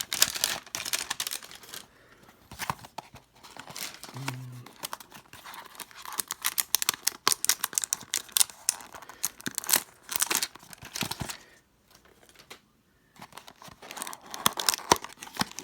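Trading-card packaging being handled and torn open: irregular crinkling and tearing of plastic and foil wrappers, with a short pause about twelve seconds in.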